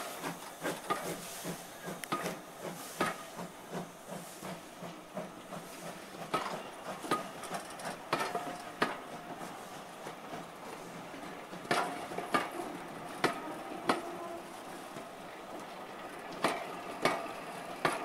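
Wooden-bodied teak railway coaches rolling slowly past behind a steam locomotive: the wheels click over the rail joints at irregular intervals, often in close pairs, with a few brief faint squeals. Steam hiss fades away in the first moments.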